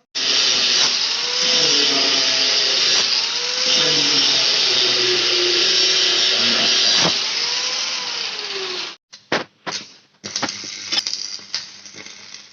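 Electric drill boring a hole through a broken steel engine-mount bracket, running steadily for about nine seconds with its motor pitch dipping and recovering as it bites, then stopping and starting in a few short bursts.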